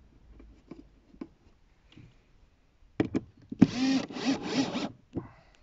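Cordless drill running in three short bursts as it bores into a wooden roof slat, its motor pitch wavering under load. Before it come light clicks and knocks of the wooden slats being handled.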